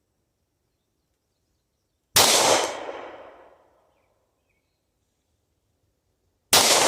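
Two shots from a Sig Sauer P226 Legion SAO 9mm single-action-only pistol, about four seconds apart, each followed by an echo that fades over about a second and a half.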